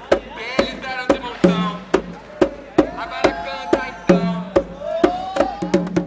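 Rhythmic music: sharp wooden knocks at an even pace of about two a second over a steady low hum, with a voice that slides up and down in pitch between them.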